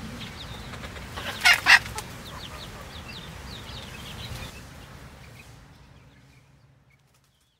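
Chickens clucking and chirping while foraging, with a loud two-part squawk about one and a half seconds in; the sound fades away near the end.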